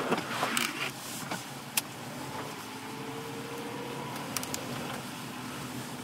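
Steady car and wind noise from a vehicle moving slowly along a snowy highway in a blizzard, with a few sharp clicks and knocks in the first two seconds.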